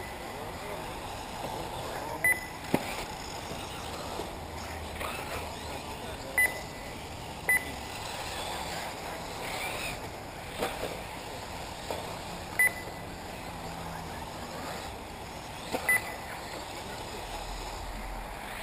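Short electronic beeps at one high pitch from an RC race lap-counting system, sounding about six times at irregular gaps of one to five seconds as buggies cross the timing line. They ring over a steady outdoor noise, with a single sharp click about three seconds in.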